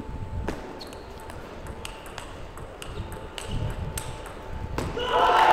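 Table tennis ball clicking off bats and table in an irregular rally, each hit a sharp tick. Near the end loud shouting breaks out as the point is won.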